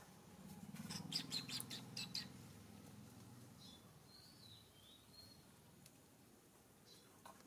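Faint bird chirps. A quick run of short chirps comes about a second in, then a few short gliding notes around the middle, over a faint low hum.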